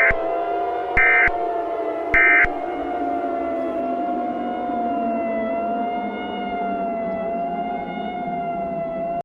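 A steady, slightly wavering siren-like drone. Three short digital data bursts sound about a second apart near the start, like the Emergency Alert System's end-of-message tones. The sound cuts off abruptly at the end.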